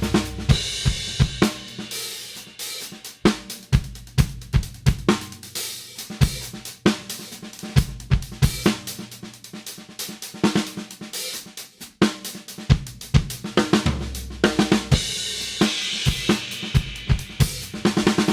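Drum kit playing a groove with fills: snare, bass drum and hi-hat strikes under Istanbul Mehmet Nostalgia series cymbals. A low drum rings out about fourteen seconds in, and the cymbals wash more heavily near the end.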